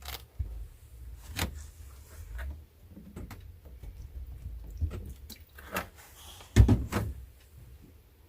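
Scattered clicks, knocks and clunks of food preparation by hand, such as handling a bowl, utensils and a pan while making pizza dough. A heavier thump comes about six and a half seconds in, over a low rumble.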